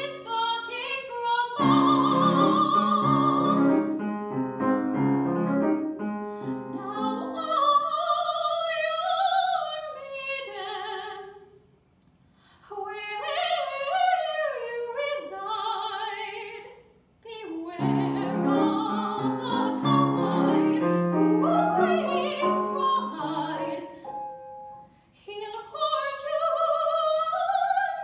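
Soprano singing a classical art song with grand piano accompaniment. The piano drops out for stretches, leaving the voice alone, with two brief pauses about midway.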